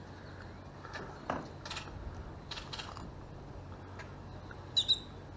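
Faint clicks and scrapes of metal pliers working a fishhook out of a mangrove snapper's mouth, with a brief high squeak near the end.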